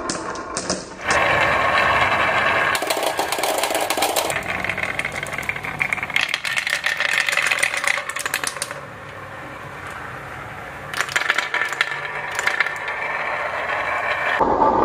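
Marbles rolling and clattering down a toy marble-run track, with dense rapid clicking over a continuous rolling rumble. The clicking eases into a quieter, smoother roll a little past the middle, then picks up again toward the end.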